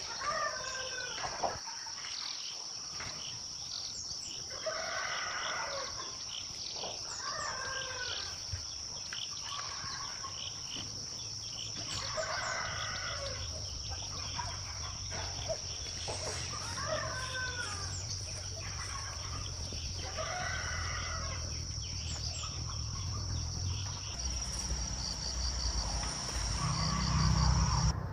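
Rooster crowing about six times, roughly every three to four seconds, over a steady high-pitched whine. A low rumble builds near the end.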